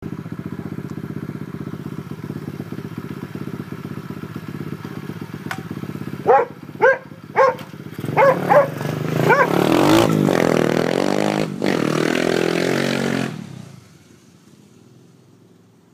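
Exhaust of a 125cc Lifan single-cylinder four-stroke pit bike engine with a deep note: idling steadily, then five quick throttle blips about six seconds in. A longer rev follows, rising and falling in pitch, before the sound drops away suddenly near the end.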